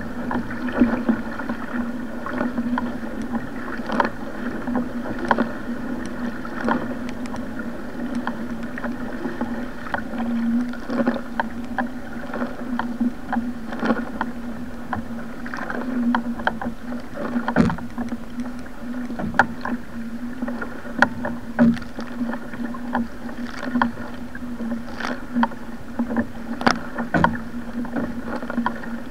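Water rushing along a surfski's hull as it is paddled through rough, wind-driven sea, with irregular sharp splashes from the wing paddle blades and waves. A steady low hum runs underneath.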